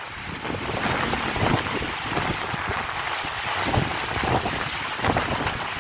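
Heavy rain pouring down, with wind buffeting the microphone in uneven gusts.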